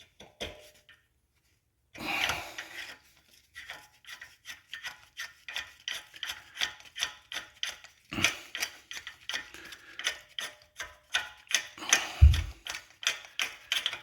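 Rapid, even metal clicking and scraping of hand-tool work as a BMW front axle shaft is worked out through the wheel hub. It starts about two seconds in, with a sharper knock about eight seconds in and a dull thump near the end.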